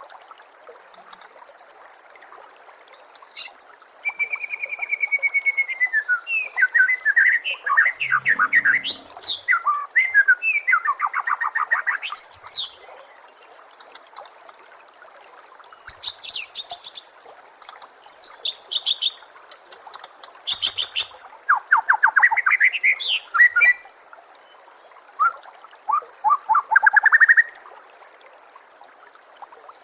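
White-rumped shama (murai batu) singing in several bursts of fast, varied whistles and trills with rising sweeps, separated by short pauses. A steady trickle of running water lies beneath the song.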